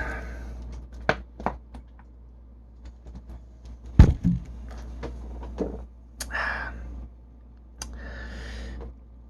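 A burp dies away at the start, followed by quiet handling noises: a few small clicks, one solid thunk about four seconds in, and two short breathy hisses later on.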